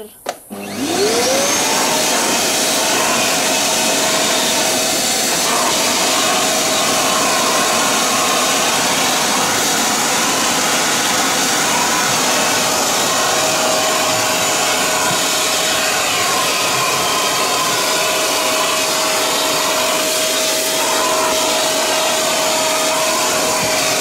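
Parkside wet-and-dry vacuum cleaner switched on: the motor spins up with a rising whine over the first second or so, then runs steadily with a high whine and rushing air as the crevice nozzle sucks sand from the car boot carpet.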